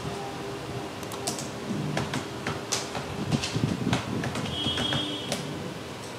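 Computer keyboard typing: irregular, scattered keystrokes over a steady low hum.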